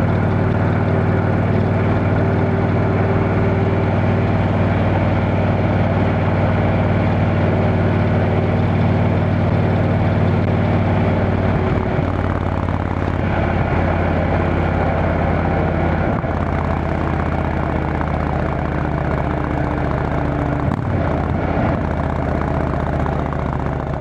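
Indian Chieftain Dark Horse V-twin engine running steadily through its Freedom Performance exhaust, with the tone shifting slightly about halfway through. The exhaust leak has just been cured with a new gasket.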